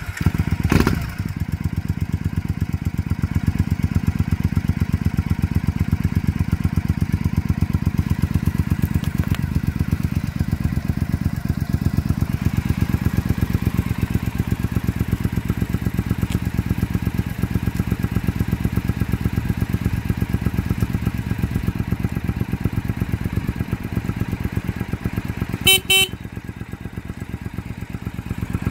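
The 2005 Triumph Bonneville America's parallel-twin engine settles into a steady idle just after starting. About 26 seconds in, the horn gives a short beep.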